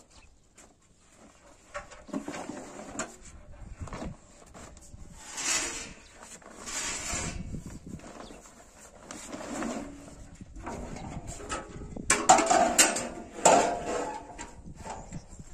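Rustling and scraping of cloth and objects being shifted about, then clanks and scrapes of a large metal saj griddle being set onto a ring gas-burner frame near the end.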